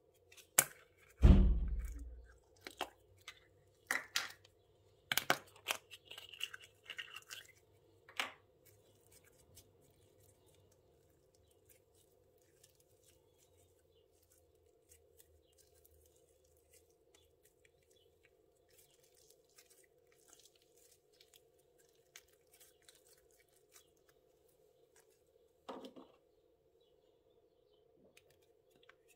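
A soft thump about a second in, then several seconds of plastic bag crinkling and tearing. After that, mostly faint handling taps with one more brief rustle near the end, over a faint steady hum.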